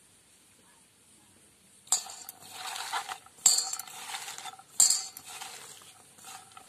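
A hand mixing chopped banana-stem pieces with turmeric and salt in a stainless steel bowl: wet pieces scraping and rustling against the metal, with three sharp clinks against the steel. It starts about two seconds in and dies away near the end.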